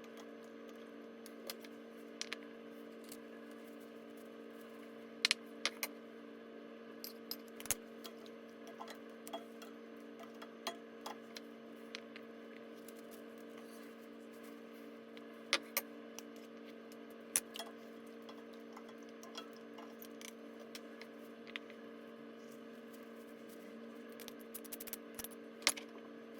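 Scattered light metallic clicks and clinks of kitchen utensils being handled, over a steady hum.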